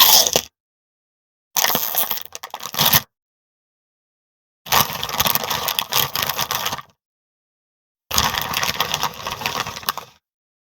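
Potato chips (crisps) crackling and crunching in four separate bursts, the first brief and the others about one and a half to two seconds long, with dead silence between.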